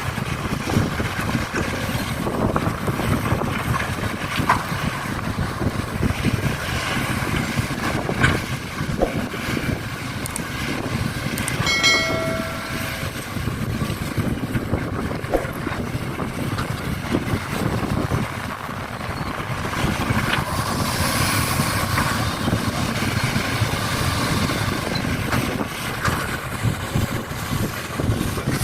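Steady, rough vehicle engine rumble, with a short pitched tone about twelve seconds in.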